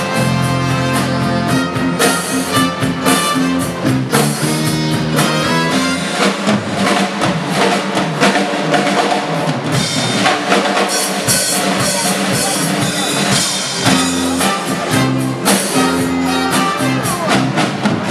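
Lively band music with a drum kit keeping a steady beat under held bass notes.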